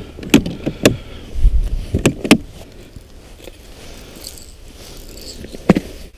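Fishing gear being handled: several sharp knocks and clatters of a rod and hard plastic in the first two and a half seconds, then quieter rustling and light rattling of lures in a plastic tackle box, and one sharp snap near the end.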